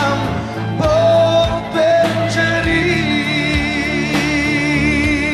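Closing bars of a pop song: a male voice with a backing band, settling from about halfway into a long held note with vibrato.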